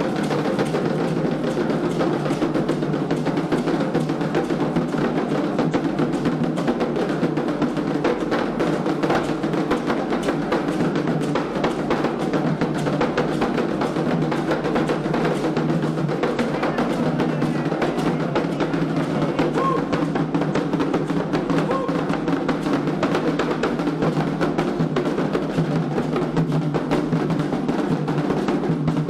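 Candomblé atabaque hand drums playing a dense, steady ceremonial rhythm without a break.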